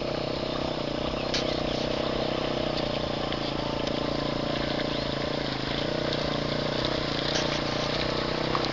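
Engine of a homemade two-wheel-drive 'Leshy' off-road motorcycle running steadily under load as it pulls through a waterlogged, muddy rut.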